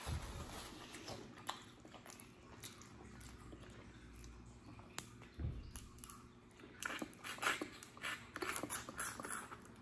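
Eating a boiled crawfish by hand: faint clicks of shell as it is peeled, then a louder run of wet, crackling mouth sounds about seven seconds in as the crawfish is put to the mouth.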